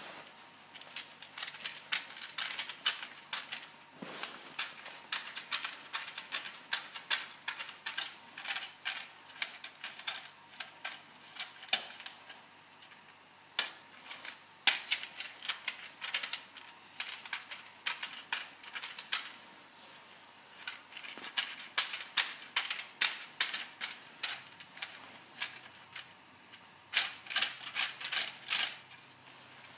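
Quick, irregular runs of sharp clicks and metal taps from a hand screwdriver unscrewing the bolts of an engine's ignition coil holder.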